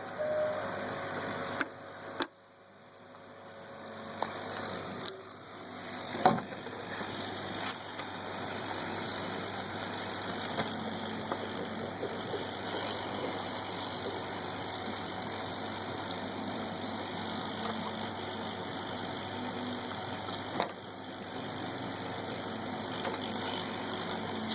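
Steady blowing hiss of a hot-air rework station's fan while the motherboard's chipset chip is being replaced. About two seconds in it cuts out after a click, then builds back up over the next few seconds. A few sharp clicks sound over it, the loudest about six seconds in.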